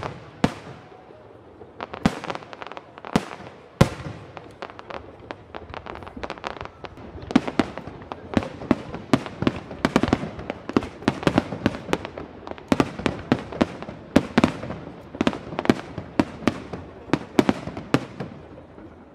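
Aerial fireworks display: an irregular string of sharp shell bursts and launch bangs, a few at first and then several a second from about seven seconds in.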